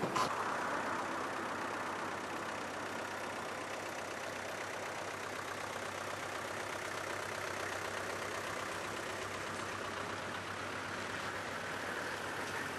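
Vehicle engines running steadily as a camouflaged Ford Transit van and a Toyota Land Cruiser pull slowly away in convoy. A single brief knock, like a vehicle door shutting, comes right at the start.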